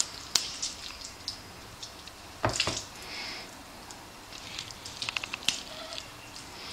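Raw chicken thighs being pushed onto a metal rotisserie skewer by hand: soft wet squelches and small clicks, with one louder knock about two and a half seconds in.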